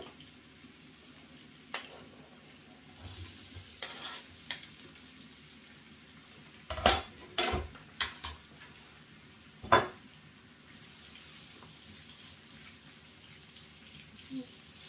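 Chopped onions frying in olive oil in a frying pan, a soft steady sizzle, as boiled carrot slices are tipped in from a cutting board. Several sharp knocks of the board and utensils against the pan and the worktop come through, the loudest about seven and ten seconds in. Near the end a spatula stirs in the pan.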